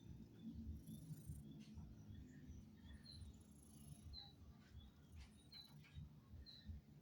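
Near silence: faint outdoor background with short, high chirps about once a second.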